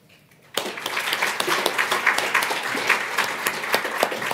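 Audience applauding, starting abruptly about half a second in and going on steadily as a dense patter of many hands clapping.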